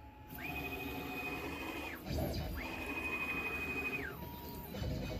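Onefinity CNC machine's stepper motors whining as the gantry moves through a ghost test with the router switched off. Two moves, each a high whine that ramps up, holds steady for about a second and a half and falls away, then a shorter, lower whine near the end.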